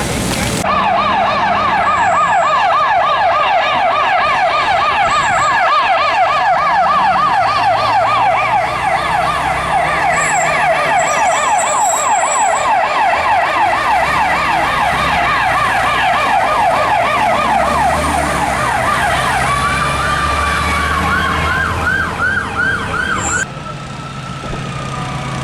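Fire engine siren on a fast yelp, its pitch sweeping up and down about three times a second over a low engine hum. A second, higher-pitched siren sounds near the end, then the sirens cut off suddenly, leaving the engine running.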